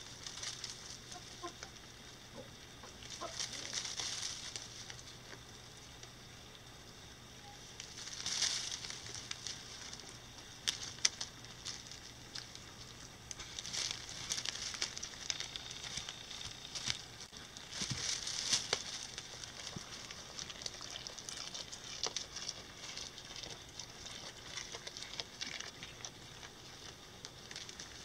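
Goats browsing and moving through dry brush and leaf litter: irregular bursts of rustling and crackling from twigs, leaves and undergrowth, with a few sharp snaps.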